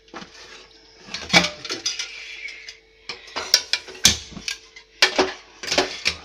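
Metal clanks and clattering from an aluminium pressure cooker being handled on a gas stove, about five or six sharp knocks spread out, the loudest about four seconds in. A faint steady hum runs underneath.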